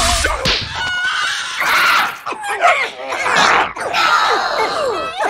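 Several cartoon characters screaming and squealing together in high, wordless cartoon voices, their pitch sliding up and down.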